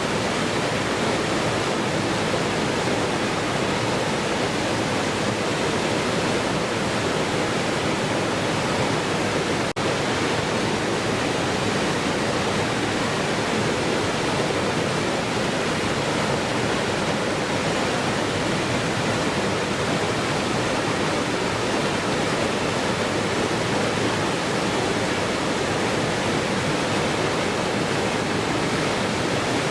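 Waterfall: a steady, even rush of falling water with a split-second dropout a little under ten seconds in.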